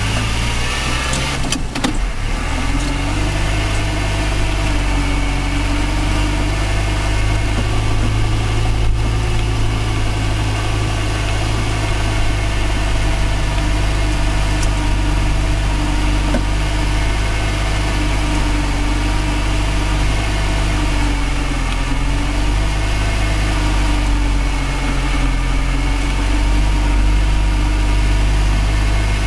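Land Rover Series engine running, heard from inside the cab: a steady drone whose pitch rises and falls slightly as the vehicle drives slowly through snow, with a brief knock about two seconds in.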